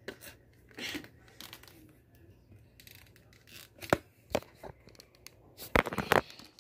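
Hard plastic clicking and rattling as a toy Gyrosphere's clear plastic ball is handled and opened, with a few sharp snaps about four seconds in and again near the end.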